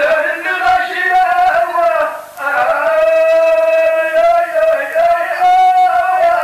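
A man chanting tanshadt, Tashelhit sung poetry, in long held notes that bend slowly, with a short break for breath a little over two seconds in.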